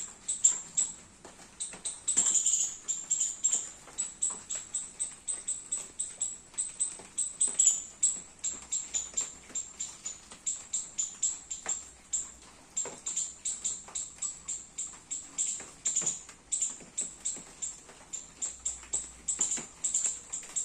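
A squirrel calling with a long, rapid series of short, high-pitched chirps, about three a second, kept up without a break.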